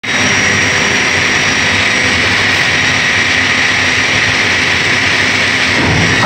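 Steady, loud running noise of an industrial woodworking line, with conveyors and machinery going and a continuous airy hiss over a low hum.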